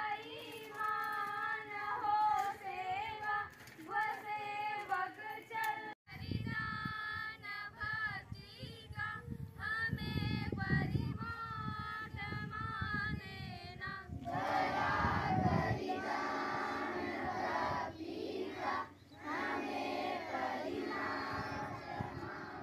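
A group of schoolchildren singing their morning assembly prayer together, the chorus growing louder and fuller about two-thirds of the way through.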